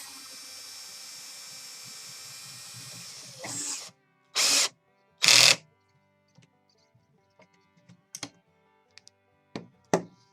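Workbench assembly noises over background music: a steady mechanical hum for the first few seconds, two loud short bursts about halfway through, then scattered sharp clicks and knocks.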